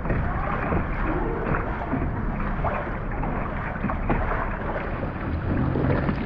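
Kayak paddling through choppy water, with a steady wash of water sloshing and lapping around the hull.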